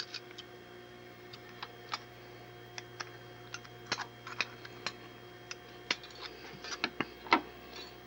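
Scissors cutting a strip from an aluminium soda can: irregular small snips and clicks, with one louder click near the end.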